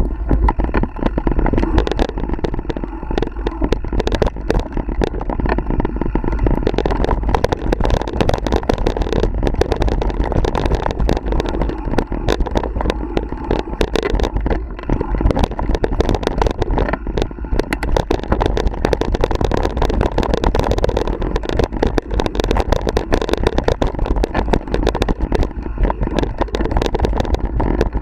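Mountain bike rolling fast down a dirt and leaf-covered singletrack, picked up by a camera on the bike: constant wind buffeting on the microphone over tyre rumble, with frequent rattles and knocks from the bike over rocks and roots.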